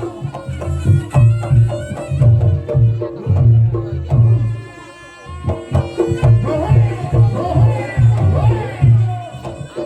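Reog Ponorogo gamelan music played live: kendang drums beat a steady, driving rhythm under held gong-like tones. A shrill slompret wind melody wavers over the drums in the second half.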